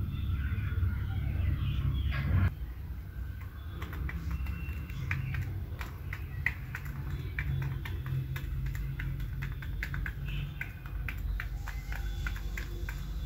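Chickens pecking grain off a concrete floor: quick, irregular sharp taps, with short chirps from the birds. For the first two and a half seconds a low rumble runs under it, then cuts off suddenly.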